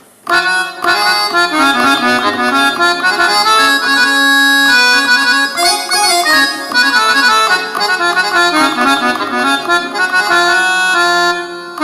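Roland XPS-30 synthesizer playing a harmonium patch built from General MIDI sounds: a reedy melody played over held lower notes, starting about a quarter second in.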